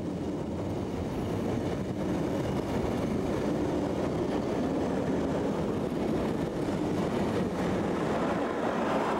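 A train of SBB passenger coaches running past at speed: a steady rumble and rattle of steel wheels on the rails. It drops away at the very end as the last coach clears.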